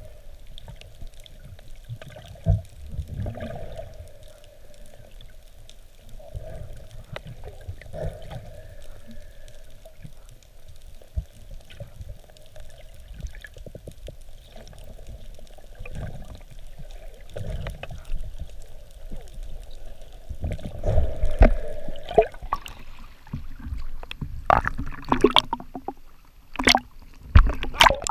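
Muffled underwater water noise with scattered low knocks, growing louder and busier in the last several seconds with bubbling and sloshing as divers handle a speared fish just below the surface.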